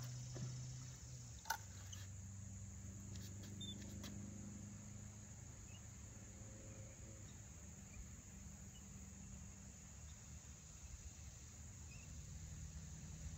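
Quiet handling of a spinning rod and reel being worked, with a sharp click about a second and a half in and a few softer clicks soon after. Faint high chirps from insects or birds sound in the background.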